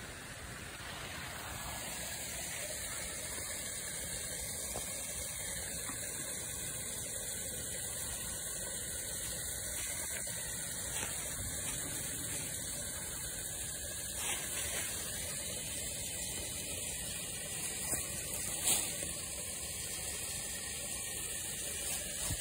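Water pouring steadily out of a drainage pipe and splashing into a pool below, a constant rushing spray that swells a little over the first two seconds.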